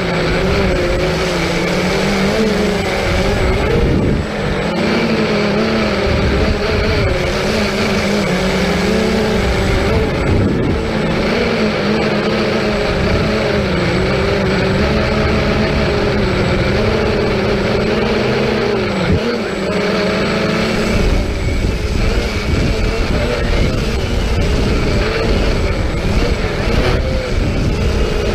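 Multirotor drone's motors and propellers whining steadily, the pitch wavering slightly as the throttle changes, with low wind rumble on the microphone that gets heavier in the last several seconds.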